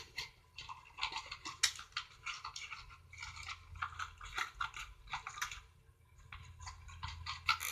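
Homemade slime being scraped from the sides and bottom of a bowl and squished into a container, a run of short, irregular wet scraping and squelching strokes with a brief pause about six seconds in.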